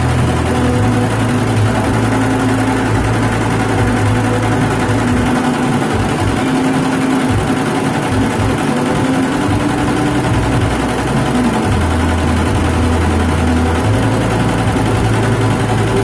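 Golden Flying Horse multi-head computerized embroidery machine running, its needles stitching a logo into a fabric patch with a steady mechanical clatter. Its low drone shifts a few times.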